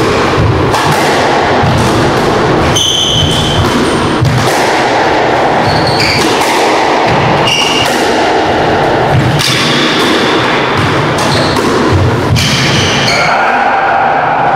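Squash rally: the ball thudding off racket and walls at irregular intervals, with brief high squeaks of shoes on the court floor.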